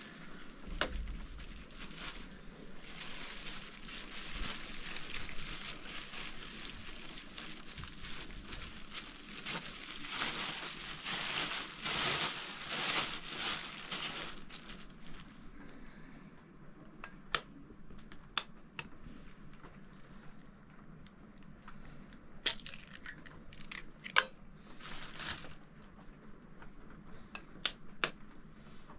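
Rustling, crackling noise for about fifteen seconds, then quieter with scattered sharp clicks and knocks.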